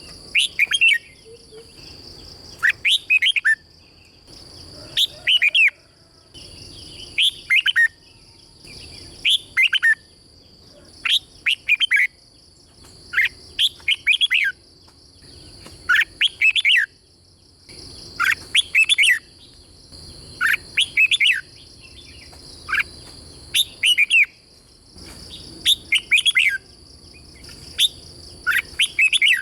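Red-whiskered bulbul singing short phrases of quick down-swept whistled notes, one phrase about every two seconds, over a steady high-pitched whine.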